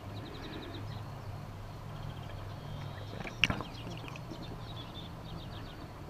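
Faint bird calls: short, rapid rattling series of high ticks, repeated several times, over a low steady hum. A single sharp click a little past halfway is the loudest sound.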